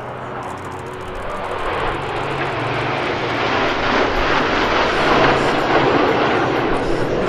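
Formation of nine CT-114 Tutor jets flying past, their single-turbojet engines making a steady roar that grows louder throughout as the formation comes closer.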